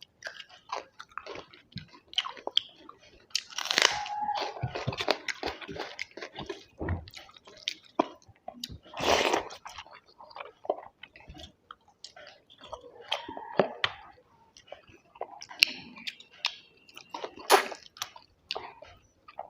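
Close-miked chewing and mouth sounds of a person eating rice with mutton curry gravy, coming in irregular short clicks and brief bursts.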